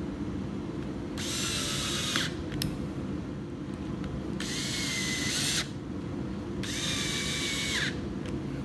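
Porter-Cable 20V cordless drill driving screws through a lazy Susan bearing plate into a wooden base, in three short runs of about a second each, its motor whining steadily during each.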